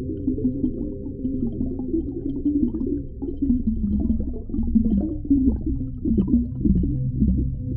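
Underwater ocean ambience: a deep, muffled, steady rumble with short wavering, gurgling sounds over it, busier in the second half.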